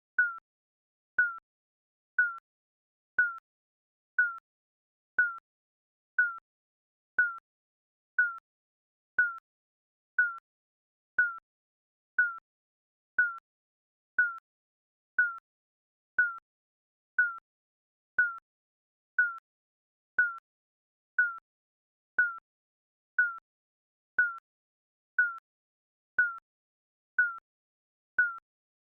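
Digital countdown timer beeping: a short, high electronic beep once a second, each with a slight downward slide in pitch and silence in between.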